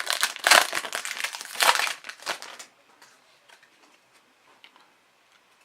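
A hockey card pack's foil wrapper crinkling as it is handled and crumpled, in a few loud bursts over about two and a half seconds, then dying away to faint rustling.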